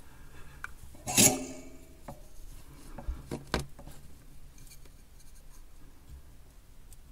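Small handling sounds of soldering wires onto a charger's circuit board: light rubbing and scraping, with one sharp knock about a second in and a few softer clicks after it.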